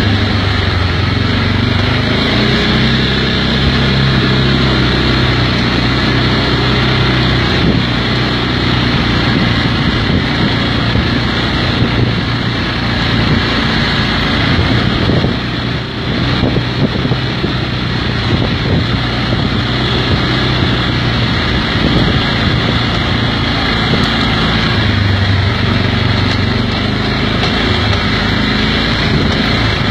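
Kymco MXU 500 quad's single-cylinder four-stroke engine running steadily under way on a dirt track. The engine note eases briefly about halfway through, then picks up again.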